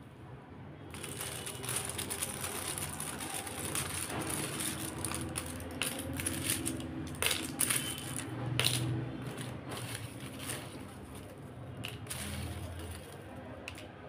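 A hand rummaging through a red plastic basket of plastic alphabet letters and folded paper slips: continuous rustling and light clicking and clattering of the pieces, starting about a second in.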